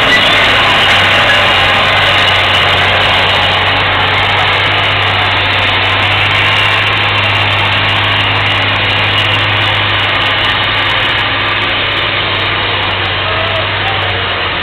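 Diesel engine of a Fendt 926 tractor running steadily and loudly under a dense wash of noise.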